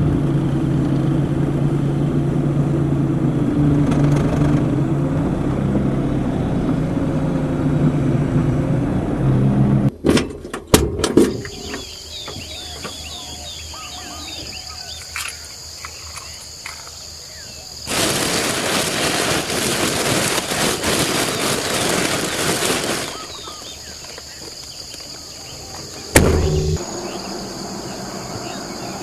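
A vehicle engine running with a steady low hum for about ten seconds, cut off by a few sharp clicks. Then tropical forest ambience follows: a steady high insect drone with scattered bird chirps, broken by about five seconds of loud rushing noise and a single sharp knock near the end.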